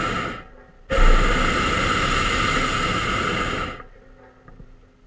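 Hot air balloon's propane burner firing: a blast that cuts off about half a second in, then after a short gap a second, longer blast of about three seconds that starts and stops abruptly.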